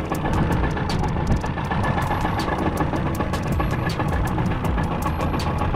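Enduro outboard motor running steadily at low speed, with frequent sharp clicks over the engine sound.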